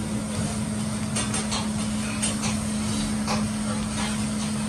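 Metal spatula scraping and clacking on a hibachi flat-top griddle as food is turned, a few short sharp clicks over a steady low hum.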